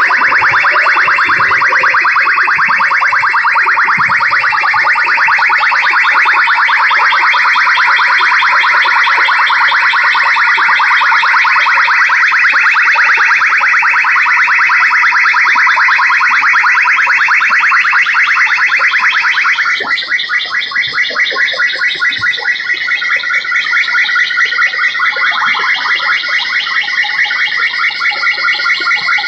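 Loud electronic chirping tone blaring from a DJ rig's stacked horn loudspeakers. About twenty seconds in it changes to a thinner tone that pulses about twice a second.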